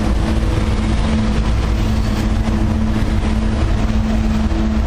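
CSX coal train passing at close range: the diesel locomotives run with a steady hum and several held tones over a continuous rumble of wheels on rail as the trailing locomotive and then coal hopper cars roll past.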